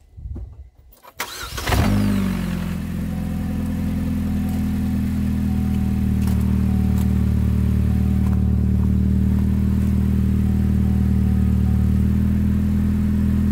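A 2007 Chevrolet HHR's 2.2-litre Ecotec four-cylinder cranks and catches about a second and a half in. It flares up briefly, then settles into a steady idle.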